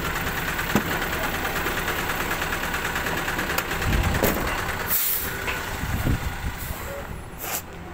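Side-loader recycling truck's diesel engine running close by, with two short, sharp air-brake hisses about five and seven and a half seconds in.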